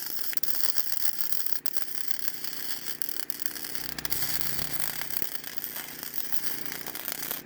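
MIG welder arc crackling steadily while a nut is welded onto the stub of a broken bolt; the arc stops abruptly just before the end.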